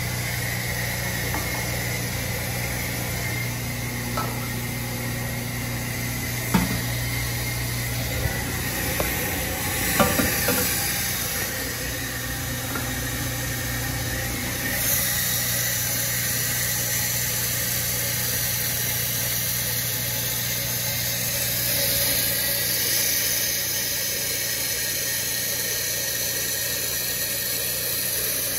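Toilet tank refilling after a flush: water hissing steadily through a Fluidmaster 400 fill valve over a constant low hum. The hiss grows brighter about halfway through, and there are a few sharp knocks near the start.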